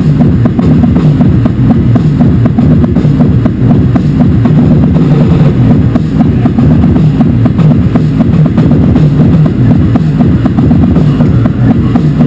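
Live harsh noise music: a loud, dense wall of distorted sound, heaviest in the low range, with a fast, irregular stream of crackling clicks over it.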